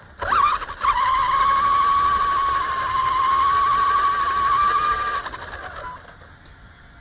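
RC car's electric motor whining at a steady pitch as the car drives, wavering at first, then cutting out a little after five seconds as the car stops.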